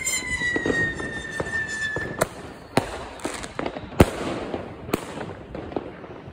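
Fireworks: a whistle falling slowly in pitch that cuts off about two seconds in, then a run of sharp bangs from a 25-shot 30 mm consumer fireworks cake (Lesli's Mobster), the loudest about four seconds in.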